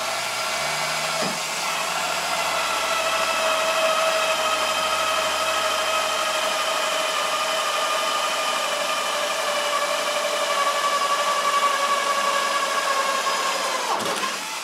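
Cordless drill running steadily under load, boring a hole through the pipe held in the vise, with a constant motor whine that falls away near the end as it stops.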